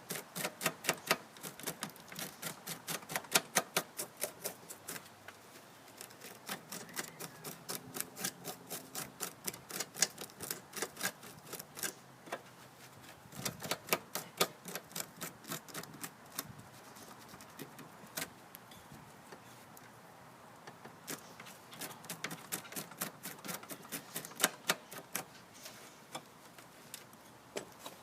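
Bursts of rapid, sharp clicking from hand-tool work on a walk-behind mower's drive axle, in several runs with short pauses between them.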